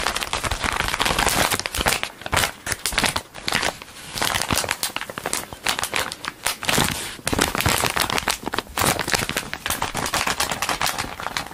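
A clear plastic bag of cotton balls being crinkled and squeezed in the hands right against the microphone: a dense run of crackles with a few short lulls.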